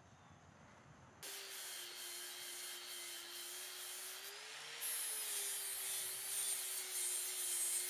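Angle grinder with a flap disc grinding welding spatter off a steel box-tube counterweight: a steady motor whine over the hiss of abrasive on steel. It starts suddenly about a second in, and the pitch lifts briefly midway as the disc bites and then eases.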